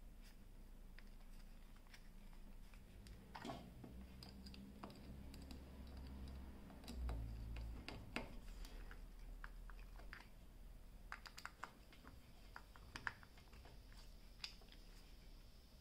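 Faint scattered clicks and light scrapes of a 220-volt plug being handled, its terminal screws turned with a Phillips screwdriver, the clicks coming thicker about two-thirds of the way through.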